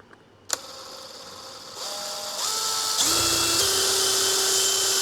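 Electric drill boring a hole through a plastic cover. The motor starts about half a second in and speeds up in a few steps, rising in pitch, then runs steady and loud at full speed.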